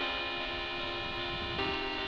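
Background music: soft held chords that change about one and a half seconds in.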